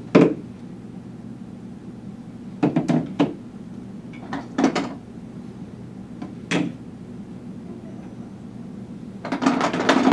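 Hard black plastic tube parts clattering as they are taken from a plastic bucket and set down on a table mat, in about five short bursts a couple of seconds apart. The longest and loudest, near the end, is a hand rummaging through the loose parts in the bucket.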